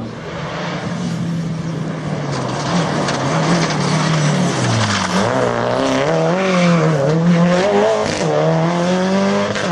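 Subaru Impreza rally car's flat-four engine at high revs as it comes towards the camera and passes at speed, with tyre and gravel noise. The engine note grows louder and, from about halfway in, sags and climbs again a few times as the driver lifts off and gets back on the throttle.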